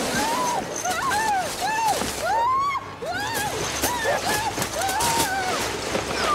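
A man yelling in a run of short, repeated cries, about two a second, as he is dragged through hedges by a dog, with the rough rustle of branches underneath.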